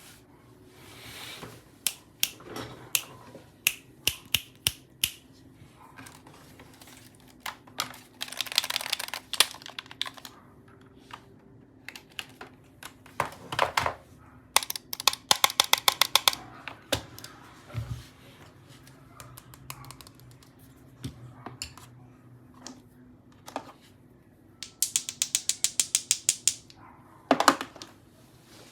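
Custom keyboard being typed on: separate key clicks and fast runs of keystrokes, with short gaps between runs.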